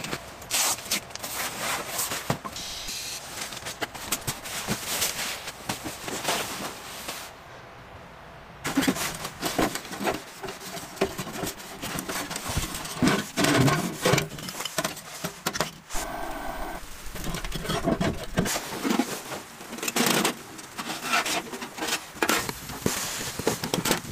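Rustling, rubbing and wooden knocks of camp work: split firewood sticks being handled and pushed into the door of a small metal wood stove, with the rustle of a puffy jacket.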